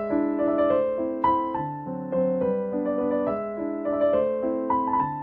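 Background music: a gentle keyboard melody, single notes following one another in a repeating pattern over held chords.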